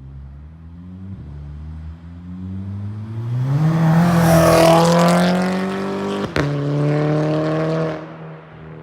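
Mk6 Volkswagen Golf GTI's turbocharged 2.0-litre four-cylinder revving hard through a catless downpipe and cat-back exhaust with no resonator. The note climbs in pitch and is loudest about four to five seconds in, with a single sharp crack about six seconds in, then holds and falls away near the end.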